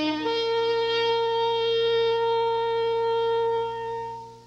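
Background music closing on one long held chord of wind instruments, fading away near the end.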